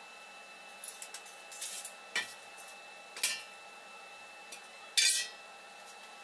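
Light metallic clicks and clacks as a steel tape measure is handled and retracted, then one loud clank with a brief ring about five seconds in, as the welded square-tube steel frame is set down on the concrete floor.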